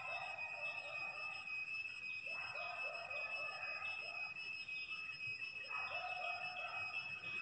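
Birds calling in the background in three bouts of quick, repeated chattering calls, over a steady high-pitched whine.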